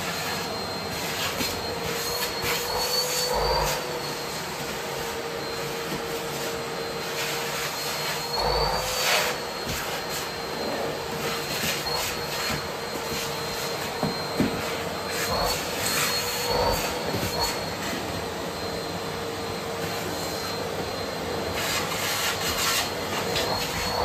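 Bosch BGS21X320 bagless canister vacuum cleaner running with a steady high whine, its pitch lifting briefly a few times. Short scrapes and knocks come from the hose nozzle working over a fabric suitcase.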